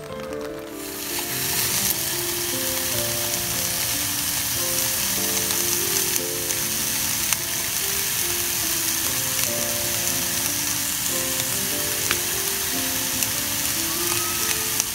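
Vegetables sizzling in oil in a frying pan over a small gas camp stove: a steady hiss that comes up about a second in. Background music plays under it, with a few faint clicks.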